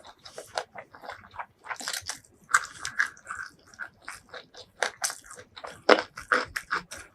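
Close-miked eating: crisp crunching bites and chewing of spicy fried food, a quick run of sharp crunches with a louder one about six seconds in.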